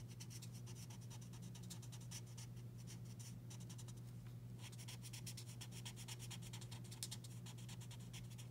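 Faint scratching of a Stampin' Blends alcohol marker's tip on card stock in quick repeated colouring strokes, blending colour into a small area, over a steady low hum.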